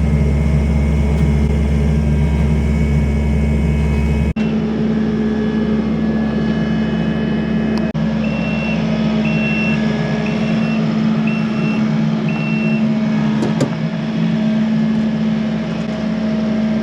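Kubota tractor's diesel engine running steadily, with a run of short high beeps in the middle.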